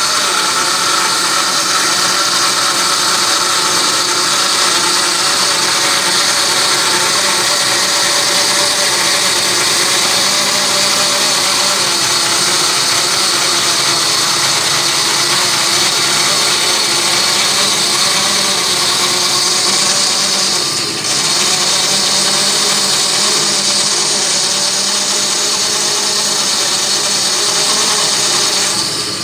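Bandsaw running and cutting steadily through a log, resawing a half-inch-thick slice on a sled.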